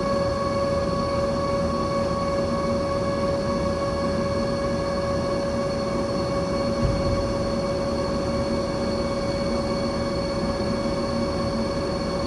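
Steady machinery drone with a constant high whine, unchanging throughout, with a single low thump about seven seconds in.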